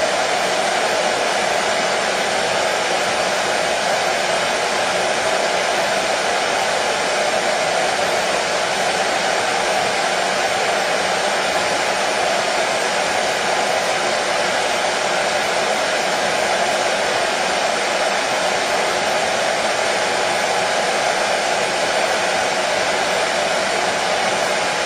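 Hair dryer running steadily: a constant airflow rush with a faint motor hum, no change in pitch or level.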